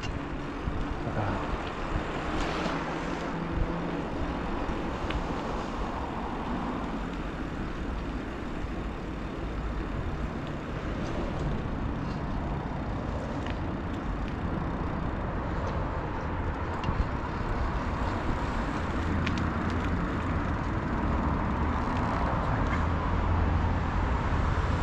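Steady rush of wind and road noise on a bicycle-mounted action camera during a ride, with low rumbling buffeting and a few light clicks, mixed with traffic noise.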